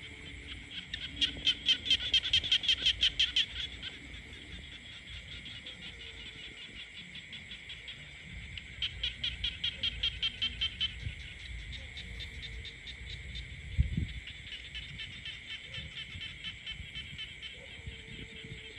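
A chorus of frogs calling, with two loud runs of rapid, evenly pulsed croaks (about eight a second) about a second in and again near the middle, over a steady high trilling background. A brief low thump sounds about two-thirds of the way through.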